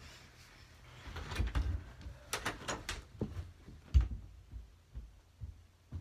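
Knocks and clicks from someone moving off through the room, then one loud thump about four seconds in, followed by a few faint knocks.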